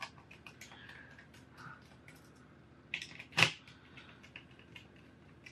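Small precision screwdriver clicking and scraping as it backs out the tiny screws holding a LeapPad 3 tablet's main board, with one sharp knock about three and a half seconds in.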